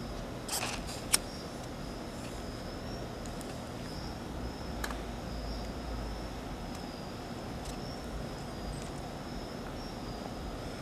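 Steady background hiss with a faint, wavering high whine throughout. A short scraping burst about half a second in is followed by one sharp click about a second in.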